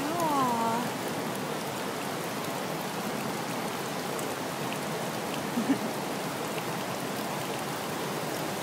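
Steady rushing water noise from the hot-spring pool. In the first second a short cry falls in pitch.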